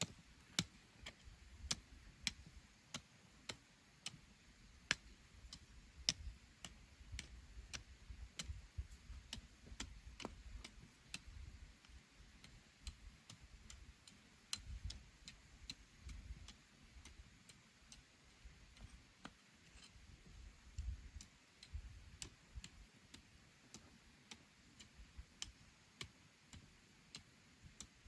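A steady run of faint, sharp ticks, roughly two a second, over an irregular low rumble.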